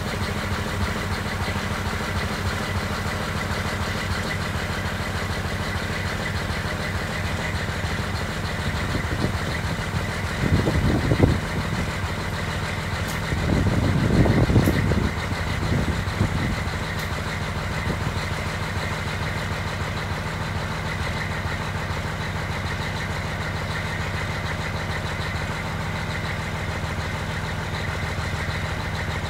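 Caterpillar C12 inline-six diesel in a 1999 Kenworth T800 idling just after a cold start at −12 °F without a block heater. It runs steadily and gets louder briefly twice, about ten seconds in and again around fourteen seconds in.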